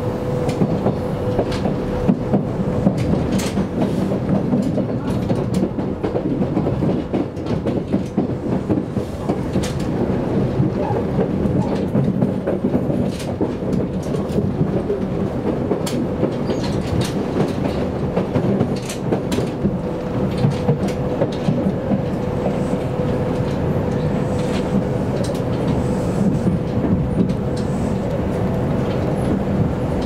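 Kintetsu commuter train heard from inside the carriage while running: a steady rumble with a constant hum, and scattered clicks as the wheels pass over rail joints.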